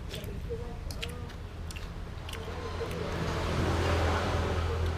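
Steady low hum with a vehicle passing, getting louder about three to four seconds in and easing off near the end, and a few light clicks.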